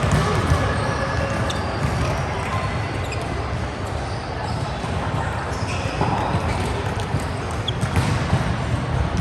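Volleyball being hit and bouncing during play in a gym hall, a few sharp ball impacts over a steady background of voices and movement.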